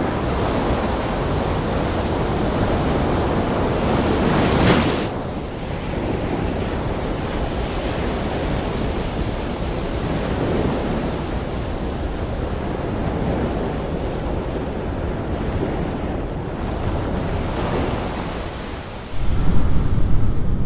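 Ocean wave breaking close up: a steady rush of surf and spray that swells about four seconds in and drops back just after. Near the end it gives way suddenly to a louder low rumble.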